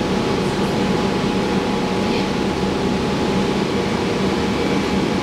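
Steady cabin noise inside a transit bus on the move: the engine and air conditioning run with a low hum and a faint, even whine.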